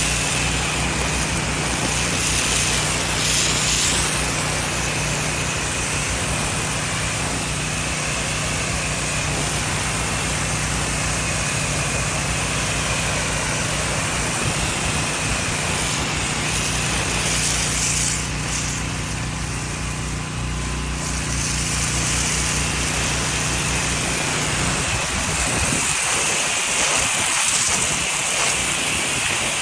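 Gas-powered pressure washer engine running steadily, with the hiss of the water spray over it; near the end the engine's hum becomes uneven.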